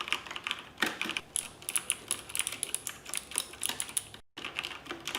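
Rapid typing on an XPG Summoner mechanical keyboard with Cherry MX switches: a quick, uneven stream of key clicks that stops for a moment about four seconds in, then carries on.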